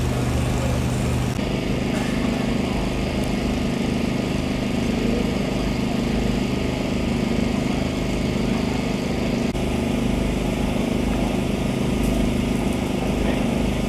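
Steady drone of running engines, such as the generators, pumps and idling fire vehicles at a fire scene, with an abrupt shift in its pitch about a second and a half in and again near ten seconds.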